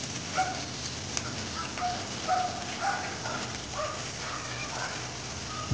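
Food sizzling in oil in a wok over a wood fire, a steady hiss. A dog barks repeatedly in the background, short calls every half second or so.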